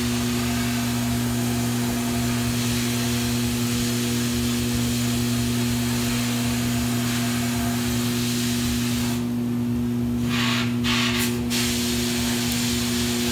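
Sandblast cabinet blasting a cast bronze sculpture: a steady hiss of abrasive blasting over a steady motor hum, cleaning the bronze surface to prepare it for patina. About two-thirds of the way in, the blast cuts off for about a second, comes back in two short bursts, then runs on.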